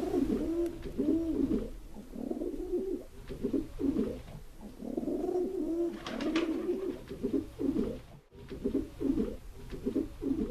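Pigeon cooing: a long string of low coos that rise and fall in pitch, broken briefly a little past eight seconds in.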